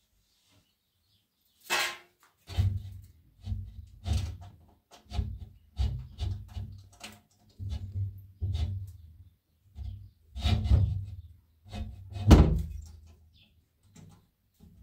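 A run of irregular knocks and thumps from hands working at a window frame, starting with a sharp sudden sound about two seconds in and roughly one every half-second to second after that, the loudest near the end.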